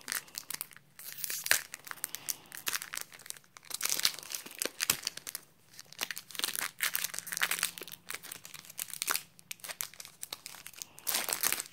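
Foil-lined Pokémon trading card booster pack wrapper crinkling and tearing as it is worked open by hand: an irregular run of sharp crackles throughout.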